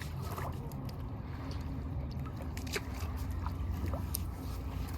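Steady low outdoor rumble with a few faint scattered clicks.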